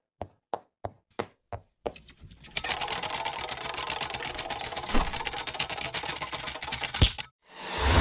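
Sound effects of an animated intro: a row of short, even clicks about three a second, then a fast mechanical rattling with a couple of knocks in it. The rattling cuts off, and a whoosh swells into a fiery burst near the end.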